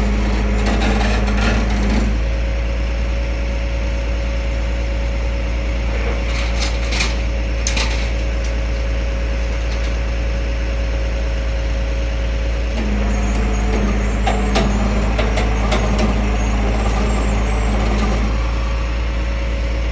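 Flatbed tow truck running while its winch pulls a pickup up onto the bed: a steady engine hum throughout, a steady whine from about two seconds in until past the middle, and a few metallic clanks around seven seconds in.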